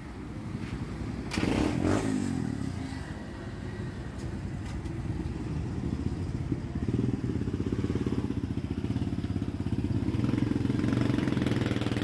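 Kawasaki Barako motorcycle's single-cylinder engine running at low revs as it pulls away, with a rapid, even beat that grows louder in the second half. There is a brief louder swell about two seconds in.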